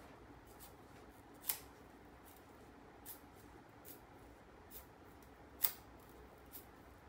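Knife blade shaving a thin bamboo strip as it is drawn along the edge: a string of short, sharp scrapes, two of them much louder, about a second and a half in and near six seconds.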